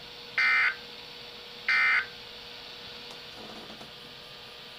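Two short, harsh digital data bursts of a Specific Area Message Encoding (SAME) alert signal on weather radio, about 1.3 s apart, over a faint steady hum and hiss. Three short bursts in a row like these are the SAME end-of-message code that closes an alert.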